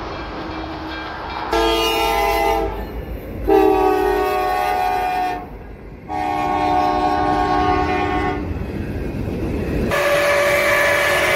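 Train horns blowing in separate long chord-like blasts: one starting about a second and a half in, another about 3.5 s in and a third about 6 s in. From about 10 s a steam locomotive's whistle sounds as one steady blast.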